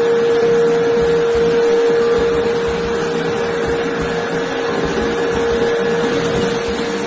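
Ring rolling mill running as it rolls a red-hot steel ring: a steady mechanical hum with a constant high whine over a rumble.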